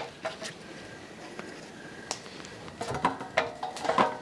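Handling sounds at an aluminium tamale steamer pot as dry corn husks are laid over the tamales. A sharp click at the start, then scattered light knocks and rustles, growing into busier clatter in the last second.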